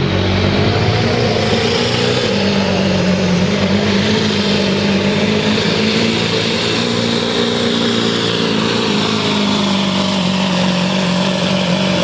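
Ford Super Duty pickup's diesel engine held at full throttle, pulling a weight-transfer sled and blowing black smoke. The engine note stays steady under heavy load and sags slightly near the end as the sled bogs it down.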